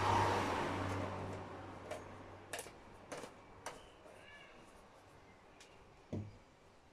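Handling a plastic jug on a workbench: a hissing noise that fades over the first second or two, then four sharp plastic clicks as the cap is screwed on, and a single thump about six seconds in as a bottle is set down.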